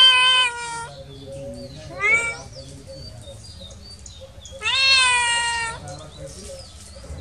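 Kitten meowing three times: a long meow right at the start, a short rising one about two seconds in, and another long meow about five seconds in.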